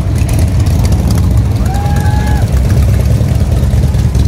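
Several motorcycles, among them big touring cruisers, rumbling steadily at low revs as they roll slowly past. A brief steady higher tone sounds about two seconds in.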